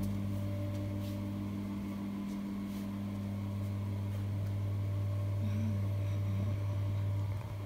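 A steady low hum, with a fainter higher tone above it that fades out about five seconds in.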